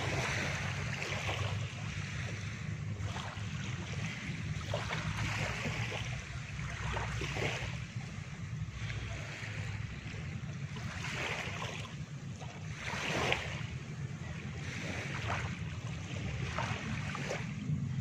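Small waves of a calm sea lapping and washing up a sandy shore. Each wash brings a fizzing hiss, a few of them louder, over a steady low rumble.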